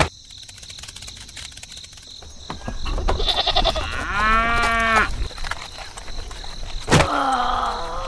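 One drawn-out farm-animal call about four seconds in. Near the end come a sharp knock and a lower animal call that falls in pitch.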